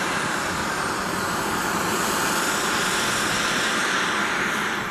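Twin JetCat P120 model gas turbines of a giant-scale radio-controlled English Electric Lightning running at power in flight: a loud, steady jet noise that starts to fade at the very end.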